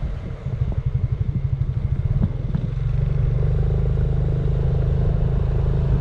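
Motor scooter engine running while riding, with road and wind noise. It throbs in fast pulses at first, then settles into a steadier, even note about three seconds in.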